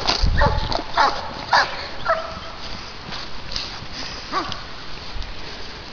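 A dog barking: a quick run of short barks in the first two seconds, then a single bark after a pause.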